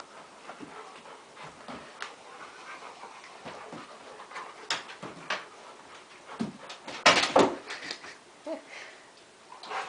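Two puppies play-fighting, with scattered short dog sounds and scuffles and the loudest burst about seven seconds in.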